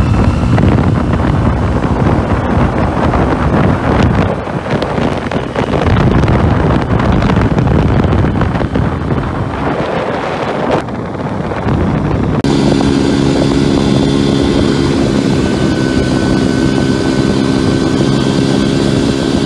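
A 1975 Hercules W2000 motorcycle's Wankel rotary engine runs while riding, for the first twelve seconds or so largely covered by wind buffeting on the microphone. About twelve seconds in the sound changes abruptly to a steady, even engine drone at constant speed, with much less wind.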